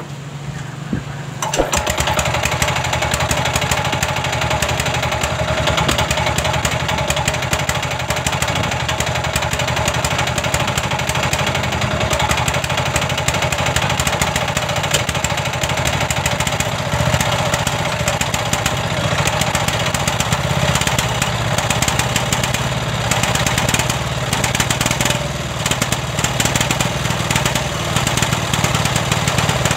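186F single-cylinder air-cooled diesel engine catching about a second and a half in and then running, popping and misfiring ('putok-putok') while it smokes heavily. The mechanic suspects water in the diesel or an injector nozzle spraying too strongly.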